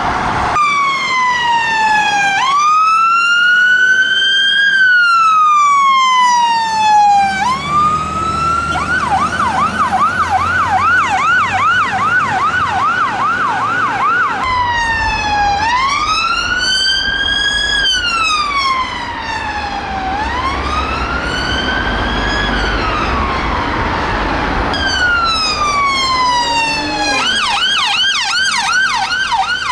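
British emergency-vehicle sirens in use: long rising-and-falling wail sweeps that switch to a fast yelp about 8 seconds in. After a cut there is a fresh run of wail sweeps, then another fast yelp near the end, with vehicle engine rumble underneath.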